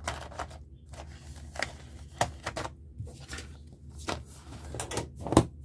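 Trays of dual-tip brush markers being packed into their metal tin case: scattered light clicks and clatters of markers and trays, with one sharper knock near the end.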